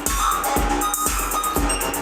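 Repetitive electronic music from a Korg Volca Keys analog synth playing a looping pattern from its factory presets. A drum machine kick lands about twice a second, with hi-hat ticks above it.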